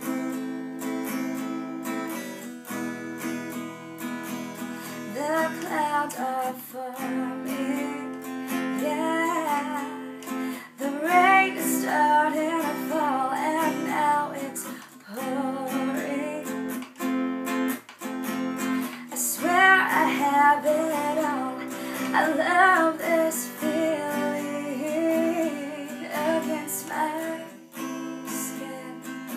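A woman singing over a strummed acoustic guitar. The first few seconds are guitar alone, and her vocal phrases come in and out from about five seconds in.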